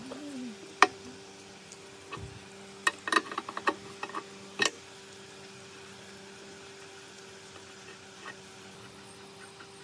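Adjustable wrench clinking against a threaded pipe fitting on an air compressor's finned cylinder head as the fitting is loosened: one metal click about a second in, then a cluster of clicks and taps between about three and four and a half seconds. A steady low hum sits underneath.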